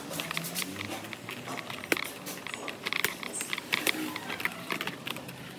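Light irregular clicking and scraping of a T-handle screwdriver turning a screw out of a scooter's plastic body panel.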